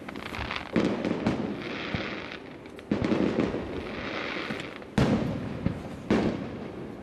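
Aerial firework shells bursting: four main booms about one to two seconds apart, each trailing off in a reverberating rumble, with smaller pops between them. The loudest boom comes about five seconds in.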